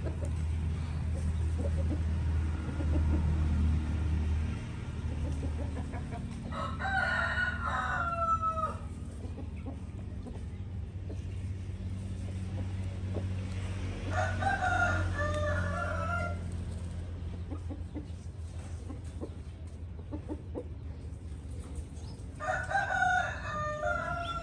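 A rooster crowing three times, each crow lasting about two seconds, roughly eight seconds apart, over a steady low hum.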